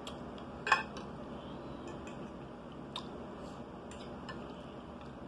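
A metal fork clinking and scraping on a dinner plate, with quiet chewing between. It comes as a handful of short clicks, the sharpest just under a second in.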